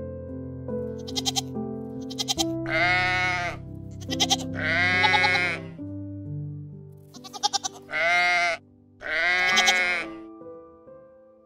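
Goats bleating: four long bleats that bend in pitch, with short stuttering bleats before them, over a steady background music track.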